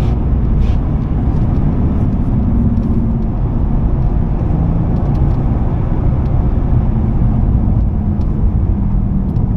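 Inside the cabin of a 2005 Ford Mustang GT on the move: its 4.6-litre V8 runs at a steady cruise with a low drone, mixed with tyre and road rumble.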